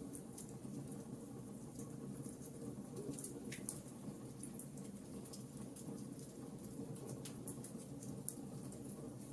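Campfire crackling: irregular small pops and snaps of burning wood over a steady low rumble of flames, with one longer crack about three and a half seconds in.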